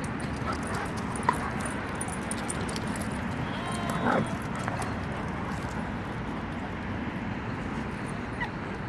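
Two dogs, a deerhound puppy and a white dog, play-fighting, with one short dog vocalisation about four seconds in over steady background noise. There is a single sharp click just over a second in.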